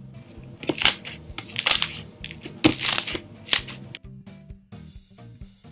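Green floam, a glue-and-borax slime packed with foam beads, squeezed and stretched by hand, giving loud crunchy crackles in several bursts over background music; the crackling stops about four seconds in and the music carries on alone.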